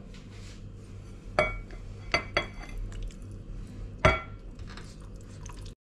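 Glass bowls clinking as raw chicken pieces are moved by hand from one glass bowl into another: four sharp, ringing clinks, about one and a half, two, two and a half and four seconds in, over a steady low hum.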